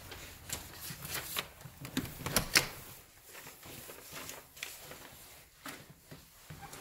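Scattered light clicks and knocks, the sharpest about two and a half seconds in, sparser and fainter in the second half: footsteps and handling noise as someone walks across a hardwood floor.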